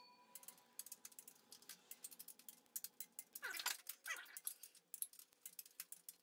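Light metallic clicking and ticking of a socket and torque wrench working the main cap bolts of an LS 5.3 V8 block, like a ratchet being cycled. About three and a half and four seconds in come two short falling squeals.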